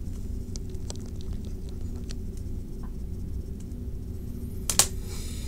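Steady low hum with a few faint ticks, then one sharp click near the end.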